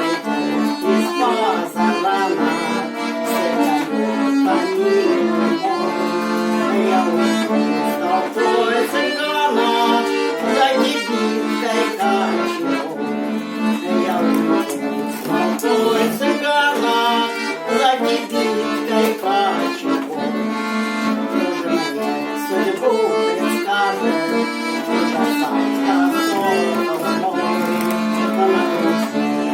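Bayans (Russian chromatic button accordions) playing an instrumental passage of a Russian romance without singing: a sustained chordal accompaniment under a moving melody line, at a steady level.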